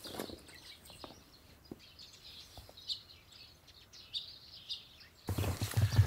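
Small birds chirping on and off, with footsteps in snow about once a second. About five seconds in, a louder rushing noise starts abruptly.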